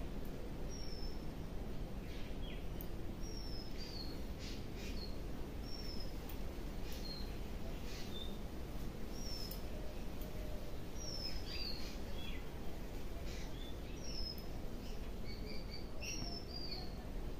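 Birds calling: short, high chirps that fall in pitch, repeated every second or so over a steady low background noise.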